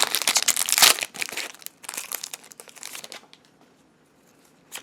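Foil booster-pack wrapper crinkling as it is handled, dense and loudest in the first second, then scattered crinkles that die away about three seconds in.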